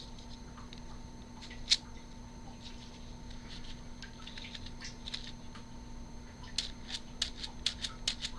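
Light plastic clicks of a rainbow fidget toy being played with in the hands: scattered at first, with one sharper click about two seconds in, then a quick run of several clicks a second from about six and a half seconds in.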